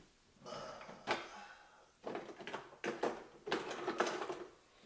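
Things being moved and handled while searching for something: a run of rustles and scrapes with several sharp clicks and knocks, in separate bursts.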